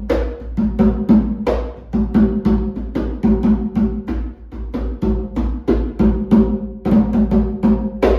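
Rumpi atabaque, an angelim-wood hand drum with a goat-skin head, played in a steady rhythm of about three to four ringing strokes a second. The drumming stops at the very end.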